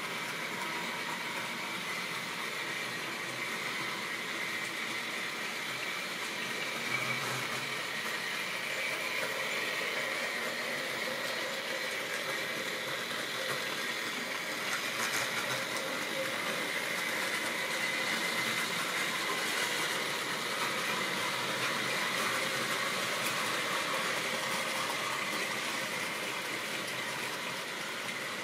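Model railway locomotive running on the layout with a train of goods wagons: the steady whine of its small electric motor over the running noise of wheels on track.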